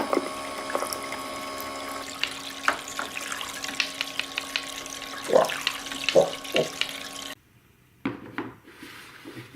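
Marbles rolling and clattering down a plastic TrixTrack wave-slope marble run, a steady rolling rush dotted with sharp clicks. It cuts off suddenly about three-quarters of the way through, leaving a few scattered clicks.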